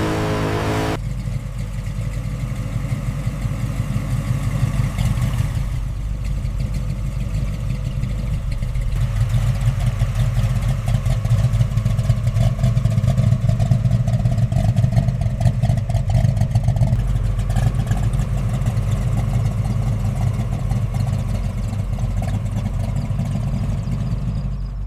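1971 Ford Mustang's engine running, getting louder for several seconds in the middle and then settling back.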